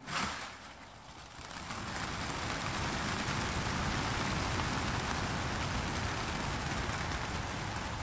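A sharp clatter at the start, then the wings of a mass of racing pigeons being released from transport-truck crates, building about a second and a half in into a steady, dense whirr of flapping, like heavy rain.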